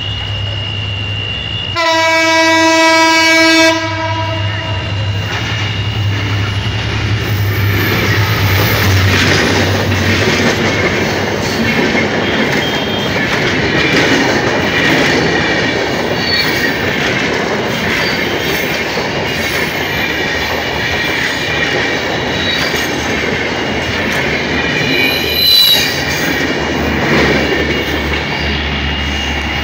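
A diesel passenger train approaches with its engine droning low, then sounds its horn for about two seconds in one steady chord. The train then passes close by: a loud rumble of the coaches with the clickety-clack of wheels over rail joints, rising briefly near the end.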